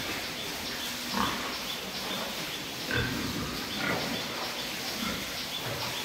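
Domestic pigs in a pen grunting now and then: about four short grunts, a second or so apart.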